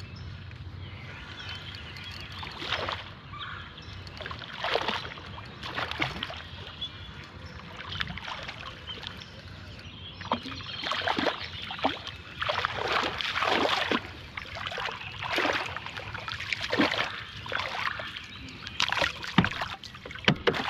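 Hooked channel catfish thrashing and splashing at the water's surface while it is reeled in toward the boat: a run of irregular splashes that comes and goes, starting a couple of seconds in.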